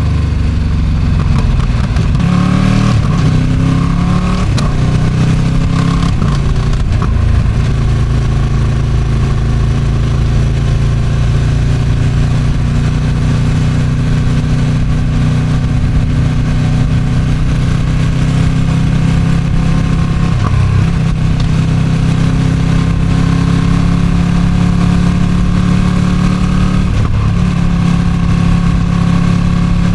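Ducati Streetfighter V2's 955 cc Superquadro V-twin on its stock exhaust, heard from the bike while riding at speed. The engine note shifts through several changes in the first few seconds, then holds a steady pull with slight rises and dips, with wind noise on the microphone.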